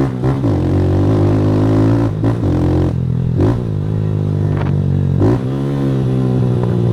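Motorcycle engine running through a Fortuna Trioval aftermarket exhaust, pulling along steadily. The engine note breaks off briefly several times and picks up again each time, rising after the last break.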